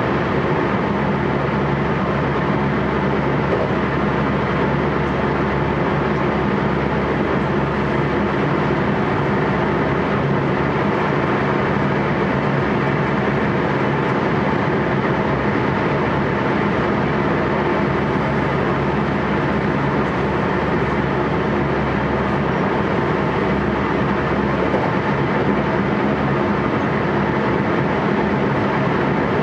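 JR West 223 series 1000 electric train heard from inside its motor car: a steady running noise with a low, even hum that neither rises nor falls.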